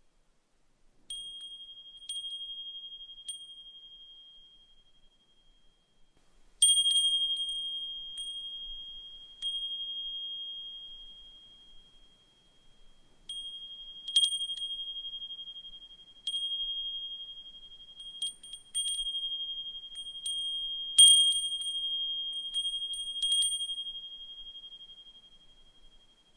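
Brass suzumushi furin, a Japanese wind chime, ringing: one clear high tone with a fainter, higher overtone, struck at irregular intervals from about a second in, sometimes in quick clusters, each strike fading slowly.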